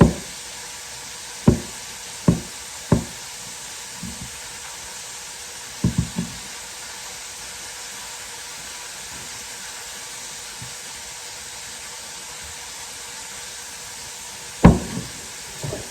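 Chicken frying in hot oil, a steady sizzle, with a handful of sharp knocks in the kitchen: several in the first few seconds, a quick cluster about six seconds in, and one near the end.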